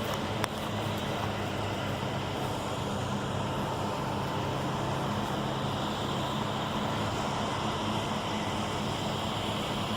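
Steady outdoor urban background noise of distant road traffic, with a low constant hum. There is a single sharp click about half a second in.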